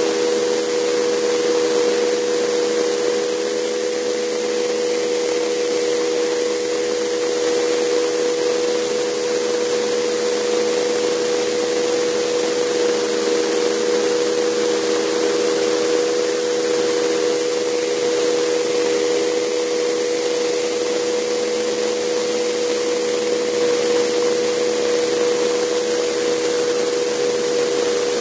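JetCat PTH-2 kerosene turboshaft turbine and drive of a Vario Alouette II model helicopter running steadily in flight, heard from a camera mounted on the helicopter: a steady hum of several close tones over a broad even hiss.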